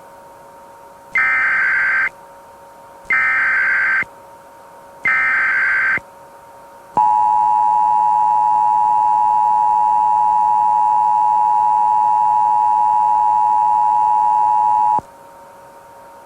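Emergency Alert System broadcast alert: three short bursts of warbling digital SAME header data, about a second each and a second apart, then the two-tone EAS attention signal, held steady for about eight seconds and cutting off sharply. A faint steady drone runs underneath.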